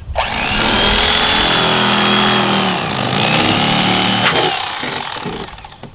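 Electric fillet knife running as it slices the skin off a catfish fillet, a loud motor whine with reciprocating blade buzz. It starts suddenly, sags in pitch about halfway as the blade works through, picks up again, then winds down near the end.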